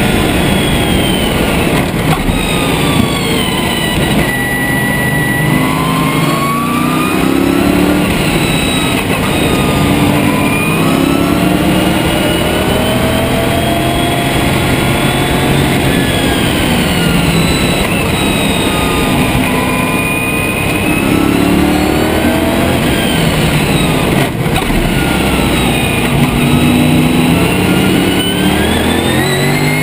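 Lotus Esprit's twin-turbo V8 racing engine under hard load. Its pitch climbs through the revs and drops away again several times as the car accelerates and slows for corners.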